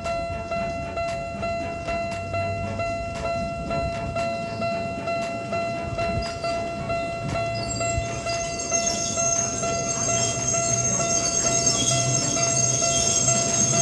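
Miniature level-crossing warning bell ringing repeatedly at about two strokes a second. From about eight seconds in, a ride-on mini train runs past with a rising high whine and a low hum.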